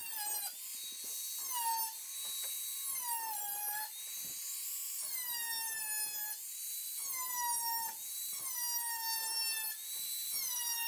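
Angle grinder with a cutting wheel slicing strips off metal roofing panels: a high motor whine over a harsh grinding hiss, the pitch sagging repeatedly as the wheel bites into the metal and recovering between passes.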